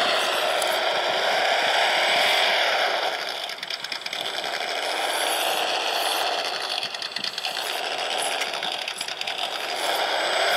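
A 1/18-scale PRC QX-4 mini RC rock crawler driving over dirt and rocks: its small electric motor and gears whine, mixed with the simulated truck engine sound from its built-in sound module. The sound eases off twice, about three and a half seconds in and again around seven seconds, as the throttle is let off.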